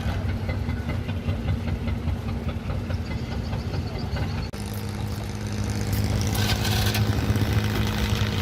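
An engine idling steadily with a low, even hum. About halfway through the hum changes abruptly to a slightly different, louder drone, and a short rush of noise comes about a second and a half later.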